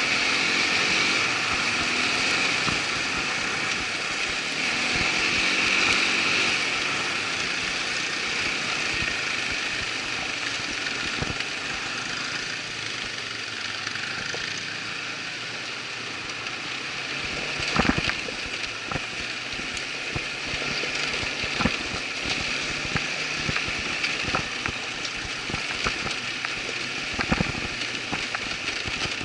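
Irbis ATV 200 quad's engine running on a trail, its pitch rising and falling in the first few seconds. From a little past halfway there are scattered sharp knocks.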